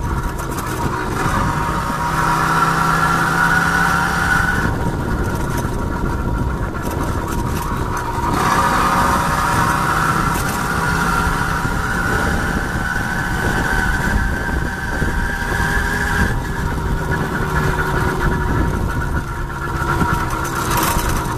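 Small two-stroke D8 moped engine of a Riga-13 running under load while the moped is ridden. Its pitch rises and falls as the throttle is worked, easing off about five seconds in and climbing again around eight seconds, pulling well and gaining revs.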